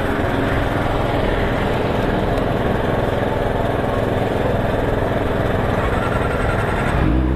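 Kawasaki ZX-25R's 250 cc inline-four engine running steadily while the motorcycle stands still, heard from the saddle.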